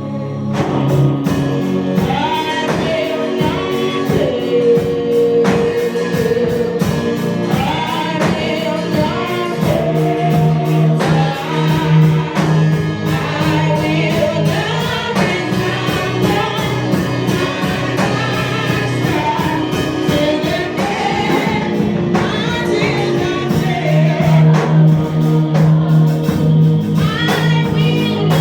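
Gospel music: voices singing a melody over instruments, with a steady beat and sustained low notes.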